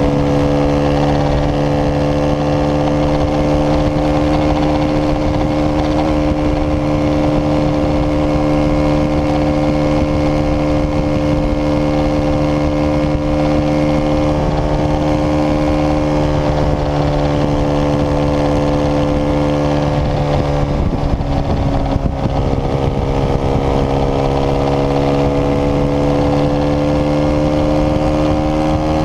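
Sport motorcycle engine running at a steady cruising pace, its note holding nearly level, dipping briefly about two-thirds of the way through and then climbing back. Wind noise on the microphone runs underneath.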